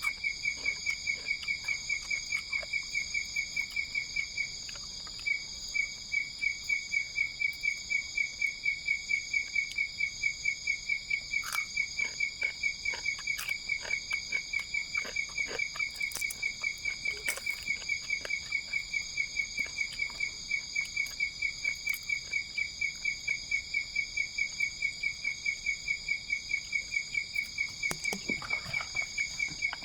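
Night insects: a cricket-like insect chirping in a fast, even rhythm at one high pitch, with a short break about four seconds in, over a steady, higher-pitched insect drone.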